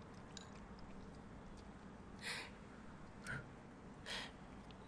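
Noodles being slurped from a bowl: three short slurps about a second apart, over faint room tone.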